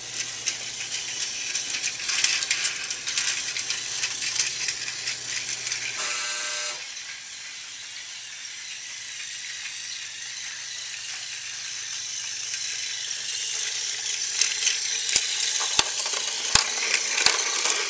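Plastic toy trains and track pieces clattering and rattling as they are handled and rummaged through, with a brief buzzy tone about six seconds in and a few sharp clicks near the end.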